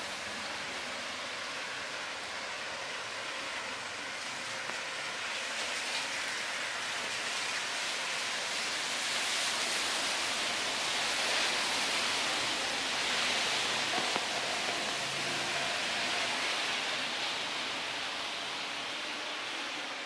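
A steady rushing hiss with no distinct events, swelling a little around the middle and easing toward the end.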